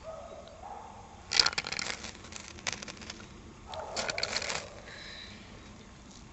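A fire striker scraped along its ferrocerium rod to throw sparks into a paper tinder stick. There are three scraping strokes: one about a second in, a short one near the middle, and a longer one about four seconds in.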